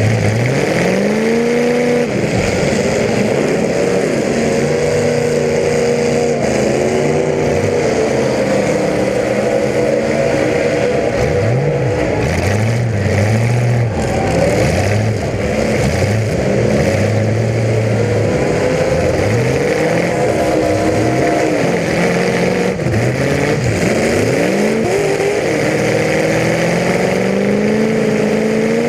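Several demolition derby car engines revving and dropping back, loud and continuous, their pitches rising and falling over one another.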